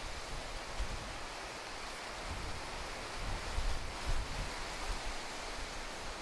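Outdoor ambience: a steady hiss with irregular low rumbles on the microphone, typical of wind.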